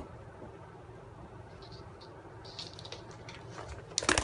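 Faint scattered ticks and rustles, then about four seconds in a short, loud burst of rustling and knocking from a handheld phone being swung around.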